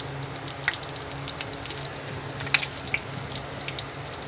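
Cheese sticks frying in shallow oil in a nonstick pan: a steady sizzle with scattered crackles and pops, the loudest about two and a half seconds in.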